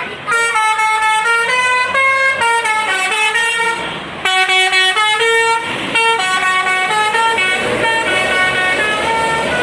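Bus 'telolet' basuri multi-tone horn playing a quick tune of short stepped notes, several pitches sounding together. Near the end the notes blur into a rushing noise.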